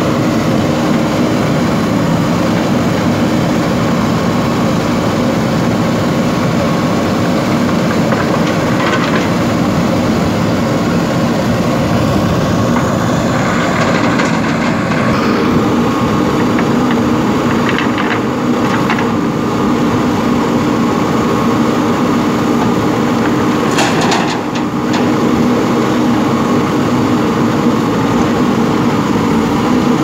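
JCB 3DX backhoe loader's diesel engine running steadily under hydraulic load as the backhoe digs and loads stone, its pitch rising and falling briefly a little before halfway. A few short knocks and clatters from the bucket and stone come around nine seconds in and again twice later.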